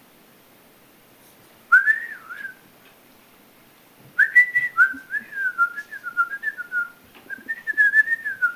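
A person whistling at a dog: a short wavering whistle about two seconds in, then a longer warbling whistle from about four seconds in.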